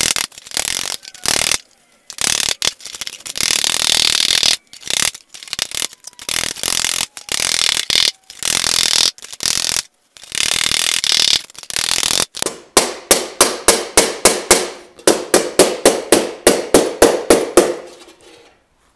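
Hammer planishing a riveted sheet-steel helmet shell on a stake. For the first part the blows run together into a dense metallic clatter broken by abrupt gaps. Then come distinct ringing strikes, about five a second, which stop shortly before the end.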